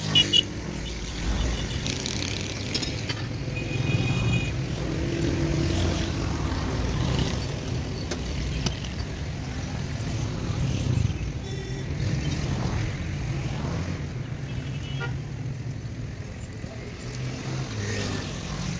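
Road traffic going by, a steady low rumble, with a couple of sharp metal clinks just after the start and a few lighter clinks scattered through, as metal skewers and grinders are handled.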